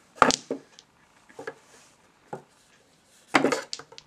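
Mini pool table balls and cue clacking: a sharp clack just after the start, a second one half a second later, a couple of softer knocks, then a quick cluster of clacks near the end.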